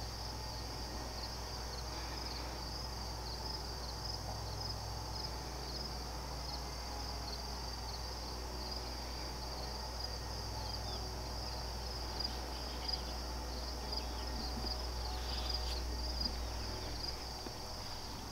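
Late-summer evening insect chorus: a steady, finely pulsing high-pitched trill of crickets, over a low steady hum.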